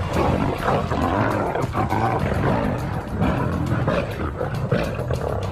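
Lions snarling and growling in a scuffle: an adult lioness clashing with young lionesses at their first meeting, a fight that is more show than real.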